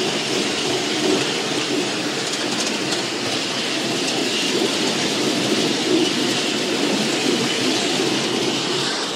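Ride-on miniature railway train running along narrow-gauge track, its wheels giving a steady rumble on the rails.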